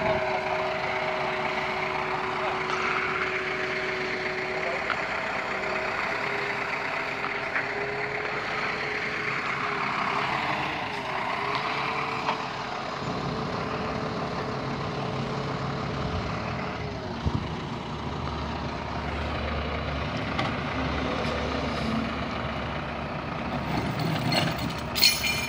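Truck diesel engine running at idle. A steady whine over it wavers about ten seconds in and dies away about halfway through, and a deeper low rumble comes through in the later part.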